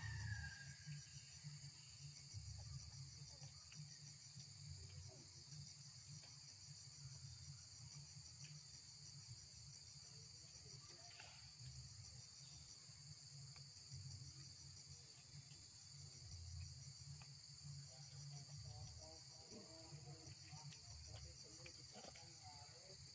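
Faint, steady insect chorus trilling high with a fine, rapid, even pulse, over a low rumble.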